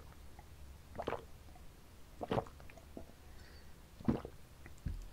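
A person drinking from a glass close to the microphone: several separate wet gulps and swallows, each a second or so apart, with a soft low thump near the end.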